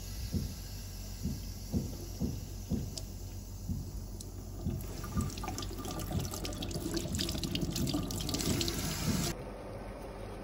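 Kitchen tap running into a stainless steel sink while a bundle of pounded stringybark is rinsed and squeezed by hand under the stream, with scattered splashes and knocks. About a second before the end the running water cuts off, giving way to a quieter steady hiss.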